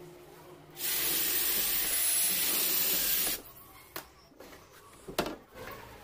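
A power drill runs steadily for about two and a half seconds, boring handle-screw holes through a laminated cabinet door, then stops suddenly; a few light knocks and clicks follow.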